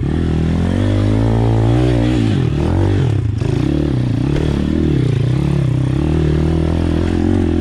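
Pit bike's small single-cylinder engine revving up and down over and over as it is ridden over rocky forest single-track. The revs climb early on, drop briefly near the middle, then rise and fall about once a second.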